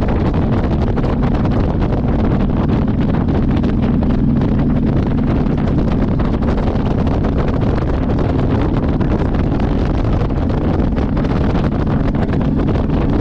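Motorcycle riding at a steady cruise: the engine running with a constant low note under heavy wind rush on the microphone.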